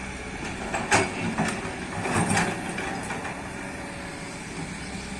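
Kobelco excavator's diesel engine running steadily, with several sharp clanks and knocks in the first half, the loudest about a second in.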